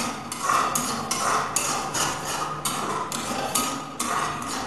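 Spatula scraping and knocking against a steel pan, about two strokes a second at an uneven beat, as a thick masala paste is stirred and fried on high flame.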